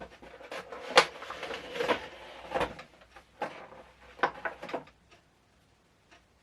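A cardboard Funko Pop box being opened and handled, with its plastic tray pulled out. There is a run of knocks, clicks and scraping rustles, the loudest about a second in.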